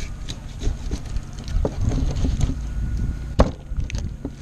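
Wind buffeting the microphone as a low rumble, with scattered clicks and taps of fish and knives being handled on a plastic fillet table. A sharp knock comes about three seconds in.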